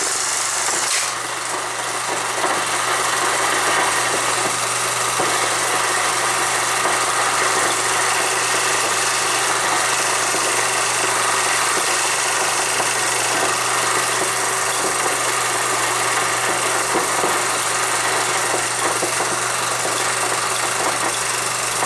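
Film projector running steadily as the end of the film passes through: an even mechanical whir with a constant low hum and hiss.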